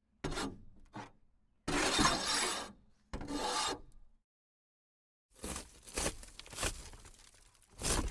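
Car body impacts and scrapes: two short hits, then a scrape lasting about a second and another shorter one. After a second of silence, a car windshield is ripped apart in a run of crackling, tearing bursts.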